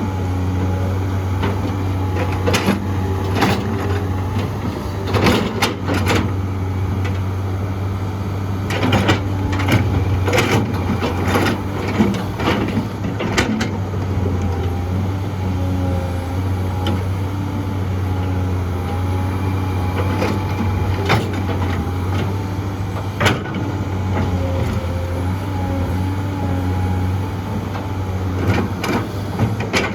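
Heavy diesel engine of an excavator running steadily under load, with scattered sharp knocks and clanks from the machine at work, bunched in the first half and again a little past the middle.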